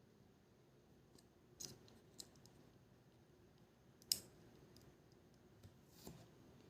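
A few faint, sharp clicks and taps from small tools and small camera parts being handled during a GoPro Hero 5 Black repair, the loudest about four seconds in, against near silence.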